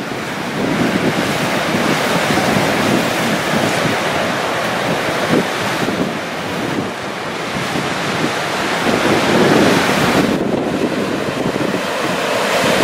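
Sea waves surging and breaking on the shore, a continuous wash of surf that swells up about nine seconds in, with wind buffeting the microphone.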